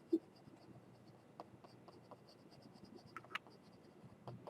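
Faint, quick strokes of a stylus drawing on a Boogie Board LCD writing tablet's plastic surface, with a few sharper ticks among them.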